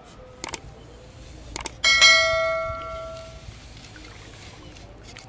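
Subscribe-button animation sound effect: two short clicks, then a bright bell ding that rings out and fades over about a second and a half.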